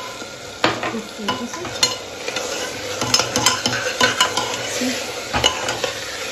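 Metal spoon stirring and scraping a sizzling tomato and onion sauce in an open pressure cooker, with frequent sharp clinks of the spoon against the pot over a steady frying sizzle.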